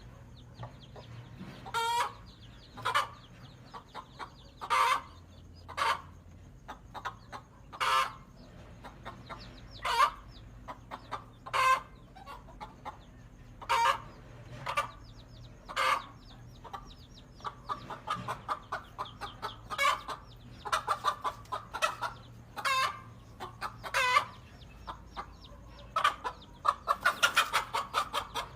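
Mother hen's loud, repeated clucking calls, one every second or two, breaking into quicker runs of short clucks in the last third. These are the agitated calls of a hen guarding her chicks from a king cobra.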